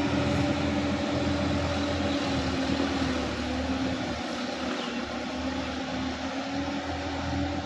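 Sonalika DI-50 RX tractor's diesel engine running steadily as the tractor drives away through shallow floodwater, its sound slowly fading.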